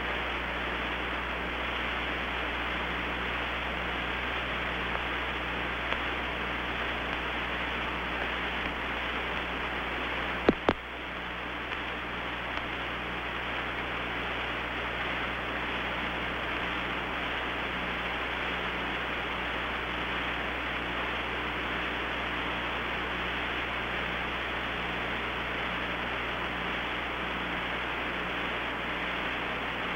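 Steady radio hiss with a low hum on the Apollo 11 air-to-ground communications link, with no voices. A sharp double click comes about ten seconds in.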